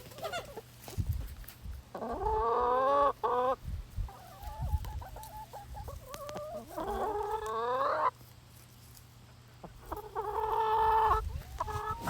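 Chickens calling: three loud drawn-out calls, about a second or more each, with softer short clucks between them.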